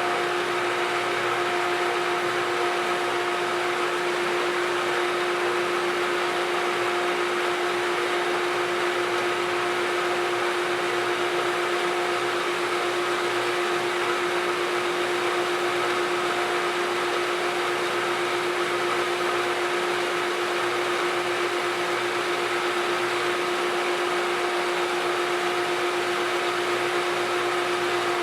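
Pool pumps and machinery in a pump room running steadily: a constant hum with a steady whine over a wash of motor and water noise.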